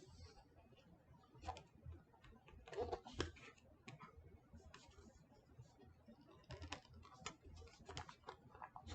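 Faint scattered clicks, taps and scrapes of hands working at a Motorola phone box to open it, with a louder burst of handling noise about three seconds in.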